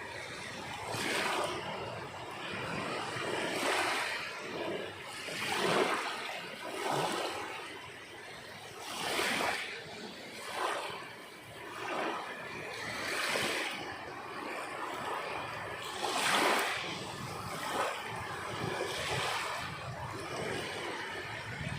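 Sea waves breaking and washing on the shore, each swell of surf rising and falling every two to three seconds, with no added effects or music.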